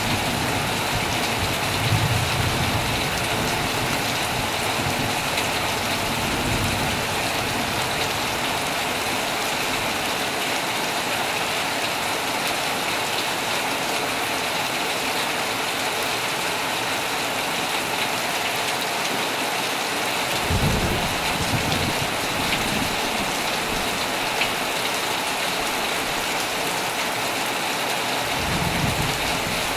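Heavy, steady rain falling on a tent, with brief low rumbles of thunder at the start, about two-thirds of the way in, and again near the end.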